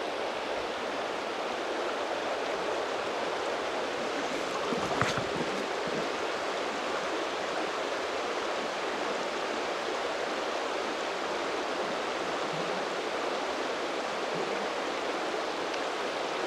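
Steady rushing of a river's current running through a shallow run.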